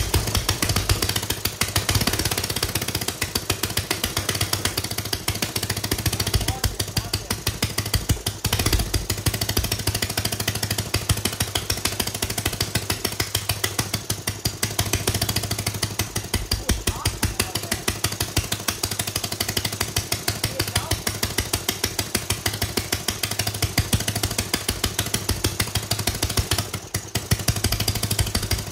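Homemade 3D-printed single-cylinder four-stroke engine running on its own with a fast, rough, even firing beat. It cuts out at the very end.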